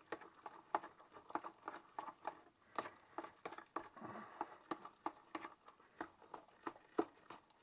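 Beetroot filling of grated beetroot, egg and breadcrumbs being stirred in a bowl with a metal utensil: irregular clicks and scrapes as it knocks against the bowl, about two or three a second, over the soft sound of the wet mixture.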